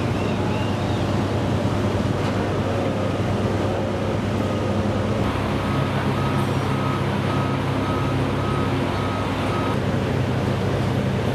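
Steady low engine hum over a wash of dockside noise. From about four and a half seconds in, a truck's reversing alarm beeps about twice a second for some five seconds, then stops.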